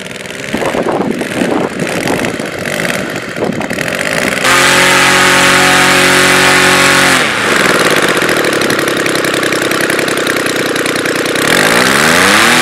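Roto 130 FSI inline three-cylinder model aircraft engine running with its propeller. It is uneven for the first few seconds, then holds a high steady speed, drops to a lower speed about halfway through, and revs back up near the end.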